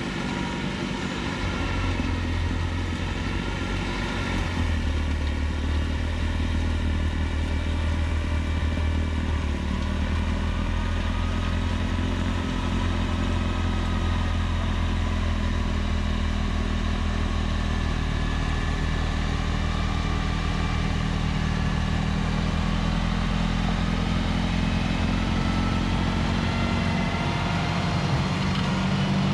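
John Deere 4052R compact tractor's diesel engine running steadily under load, driving a front-mounted Pronovost PXPL-80 PTO snowblower. The engine note shifts slightly in pitch now and then.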